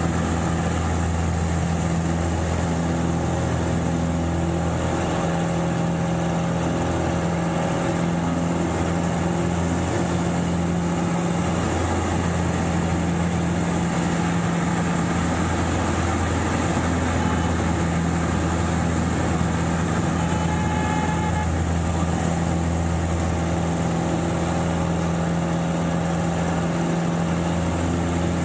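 The Pitts Special S2A's four-cylinder Lycoming engine and propeller running steadily at power, heard from inside the cockpit, its hum wavering slightly in tone a few times as the aircraft goes through aerobatic manoeuvres.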